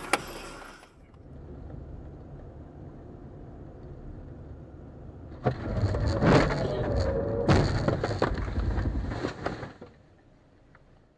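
Dashcam audio from inside a moving car: a low engine and road rumble, then, about five and a half seconds in, a sudden series of loud bangs and clatter typical of a car collision. A wavering tone sounds among the bangs, and the noise fades after about four seconds.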